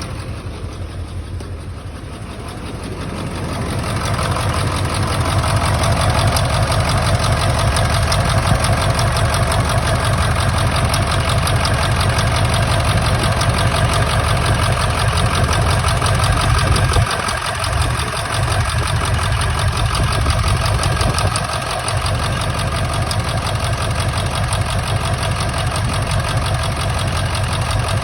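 1999 Ford F-350's 7.3 Powerstroke turbodiesel V8 idling rough with an injector misfire. It gets louder a few seconds in and dips briefly twice past the middle.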